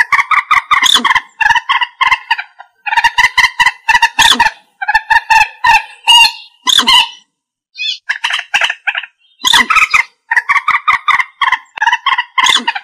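Common moorhen calling: rapid runs of loud, short clucking notes in repeated bursts, with a brief pause about seven seconds in.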